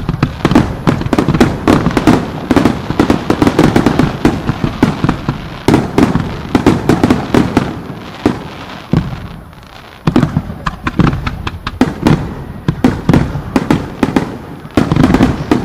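Starmine fireworks barrage: many shells bursting in quick, overlapping bangs, easing off briefly about nine seconds in before building up again.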